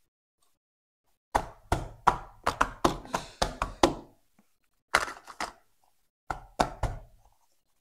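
Small cardboard Tomica toy-car boxes knocking and tapping against each other and the bottom of a cardboard carton as they are picked up, set down and shuffled. There is a quick run of knocks for about three seconds, then two short clusters of three or four.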